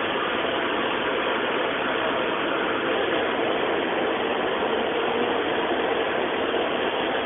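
Printing press running: a steady, even mechanical clatter that does not change.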